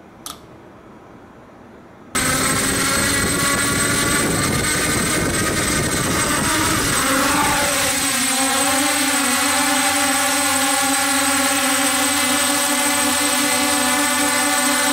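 A short click, then about two seconds in a DJI F550 hexacopter's motors and propellers start abruptly with a loud buzzing whine. The pitch shifts and climbs as the craft lifts off, then settles into a steady hover.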